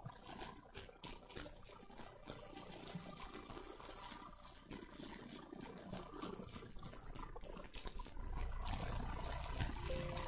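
Faint steady background noise with scattered small ticks, joined by a low rumble about eight seconds in.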